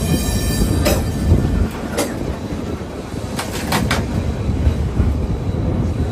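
Vintage Lisbon tram running along street track, heard from inside at the front: a steady low rumble broken by sharp clacks from the wheels and body, about a second in, at two seconds and several together near four seconds. A brief high-pitched squeal sounds at the very start.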